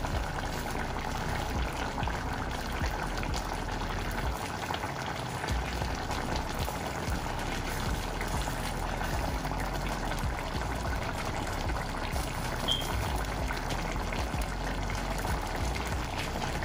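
A pot of chicharrón stewing in red chile salsa, bubbling steadily at a simmer with a constant, fine popping.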